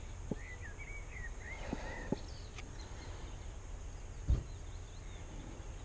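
Small birds chirping in short phrases during the first two seconds, over a steady low rumble, with a few sharp knocks; the loudest knock comes just past four seconds in.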